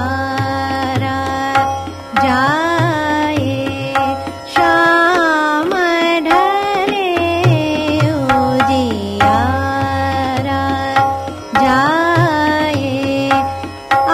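Hindustani vocal composition in Raag Hansadhwani, the sthayi being sung with tabla accompaniment. The voice glides between held notes in phrases of a few seconds each.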